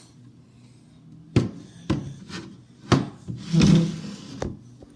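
Handling noise: several sharp knocks, with a louder rubbing scrape a little after the middle, as objects are moved and set down.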